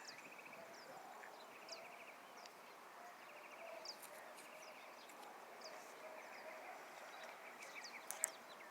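Faint outdoor birdsong: short high chirps and a repeated rapid trill from several small birds, with a couple of sharp clicks near the end.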